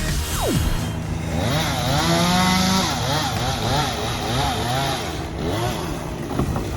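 Chainsaw running, its engine revved up and down several times in quick succession.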